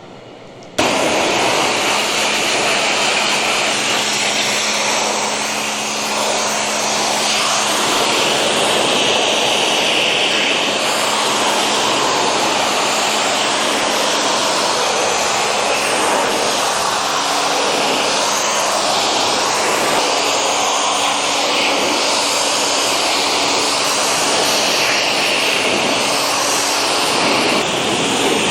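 Pressure washer jet spraying a conveyor belt: a steady, loud hiss that starts suddenly about a second in, with a low steady hum underneath.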